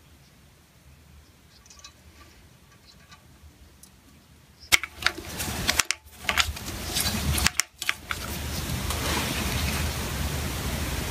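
Screwdriver tightening the screw that holds a round carbide cutter on a steel bar clamped in a vise. Faint small ticks at first, then from about five seconds in sharp metal clicks and scraping close by, going on as rubbing with more clicks.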